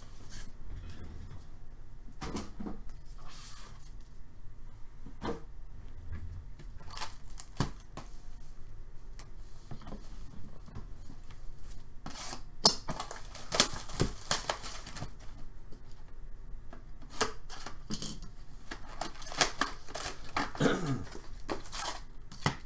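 Cellophane-wrapped cardboard box of 2018-19 Upper Deck SP Authentic hockey cards being handled and unwrapped: scattered clicks and knocks, with bouts of crinkling and tearing plastic wrap about halfway through and again near the end, as the lid flap comes open and the foil packs inside are rustled.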